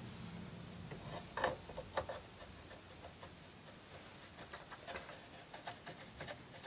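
Light clicks, taps and rubbing of small jukebox mechanism parts being handled and adjusted by hand, a few about a second and a half in and a quicker run of light clicks in the second half.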